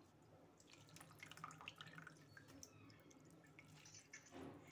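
Faint dripping and small splashes of water as soaked gram-flour fritters are lifted out of a tub of salted water by hand, mostly in the first half.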